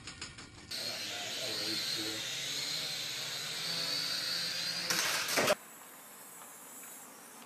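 Small toy quadcopter's propellers whirring with a steady high whine and hiss. About five seconds in there is a short loud burst of noise, then it goes quiet.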